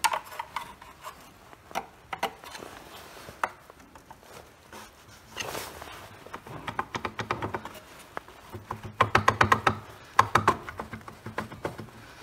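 Motorbike engine side casing (stator cover) being worked loose by hand: scattered metallic clicks and scrapes, then a run of rapid knocks and rattles about nine to eleven seconds in as the cover is wiggled.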